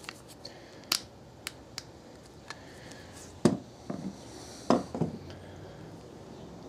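Small metallic clicks and taps of a screwdriver working a brass threaded insert into a turned wooden handle, with a few louder knocks a little past halfway as the handle is handled.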